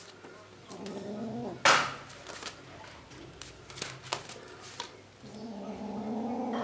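A kitten growling low while it wrestles and bites a sock, in two drawn-out spells, the second starting about five seconds in. Sharp knocks and taps from the scuffle come between them, the loudest about a second and a half in.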